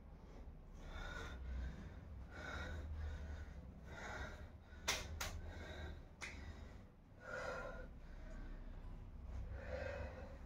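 A person breathing hard in heavy, rhythmic breaths about every two seconds, with two sharp clicks about halfway through.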